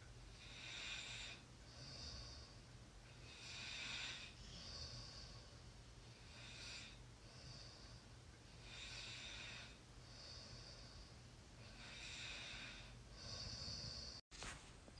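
A person snoring in sleep: faint, hissing breaths in and out, one breath about every two and a half seconds. The sound cuts out for an instant near the end.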